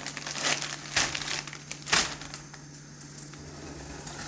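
Crinkling and rustling, as of something being handled: several short rustles in the first two seconds, the last about two seconds in, then only faint rustling over a steady low hum.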